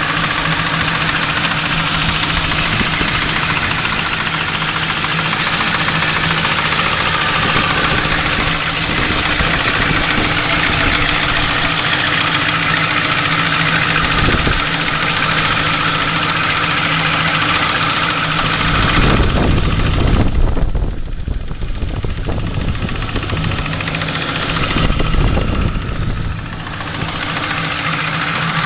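Ford Crown Victoria 4.6-litre V8 running at idle with a knock or tick, which appeared after new cylinder heads, camshafts and timing parts were fitted and whose cause the owner doesn't know. About two-thirds of the way in the sound turns deeper and muffled for several seconds.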